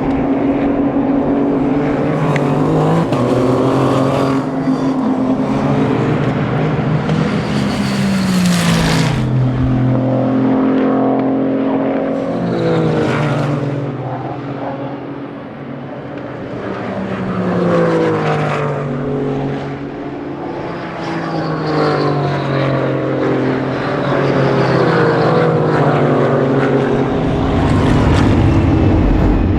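Race car engines accelerating hard through the gears, the note climbing and dropping back at each upshift, with several cars following one another past the microphone.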